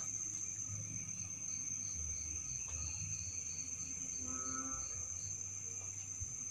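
Night insects calling: crickets keep up one steady high-pitched trill. A second insect chirps in an even row of about three short chirps a second through the middle. A brief lower pitched call comes about four and a half seconds in, over low rumble.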